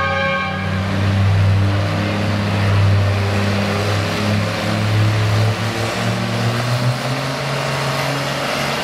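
Engine of a red International Harvester pulling tractor running at low revs while hooked to the pulling sled, its note rising a little in the second half.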